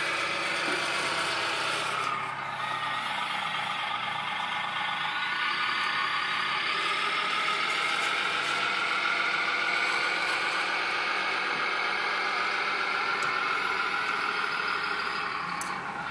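Radio-controlled scale model Liebherr wheel loader's motors whining steadily as it backs away with a load of soil and lifts its bucket. The pitch dips about two seconds in, then climbs again.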